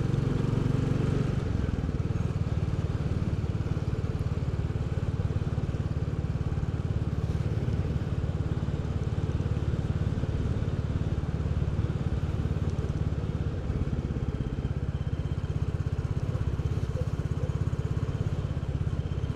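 Royal Enfield Bullet 350's single-cylinder four-stroke engine running steadily under way, its exhaust beating fast and even.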